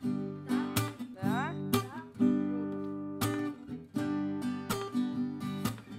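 Acoustic guitar strumming chords: background music.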